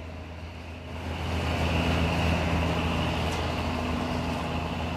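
Boat engine running with a steady low hum, mixed with wind and lapping water noise that grows louder about a second in.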